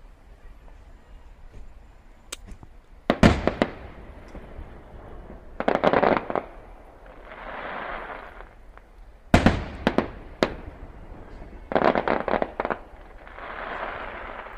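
Aerial fireworks: two loud sharp booms of shells bursting, about six seconds apart, each followed a couple of seconds later by a rapid cluster of crackling reports and then a softer hiss.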